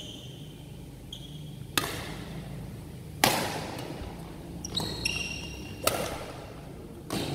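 Badminton rally: about five sharp racket strikes on the shuttlecock, roughly one every second or so, the loudest about three seconds in, each ringing on in the hall. Short high squeaks of shoes on the court floor come between the strikes.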